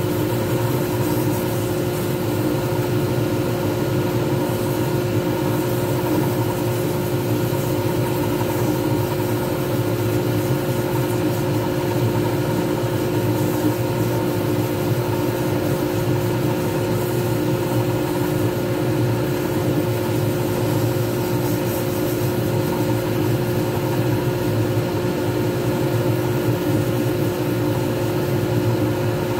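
Lathe running at a steady speed, its motor giving a steady hum with several constant tones over a light hiss, as a resin pen blank spins against sandpaper on a foam pad.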